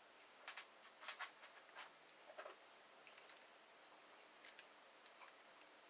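Faint, irregular clicks and light scrapes of a dimple lock pick and tension tool working the pins inside a high-security dimple Euro cylinder with security pins.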